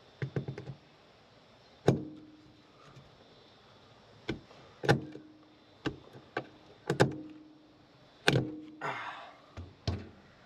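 Sharp metallic clinks and knocks of a spanner working on a Maxtrax mounting pin and its bracket, about a dozen at uneven intervals, several ringing briefly.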